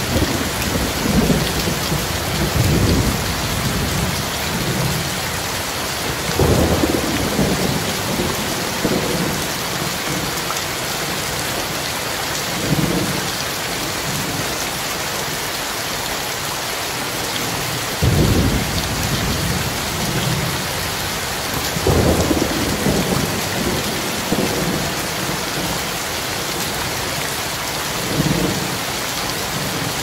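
Heavy rain falling steadily on a wet paved road, a dense even hiss. Several times a low rumble swells up for a second or two and fades.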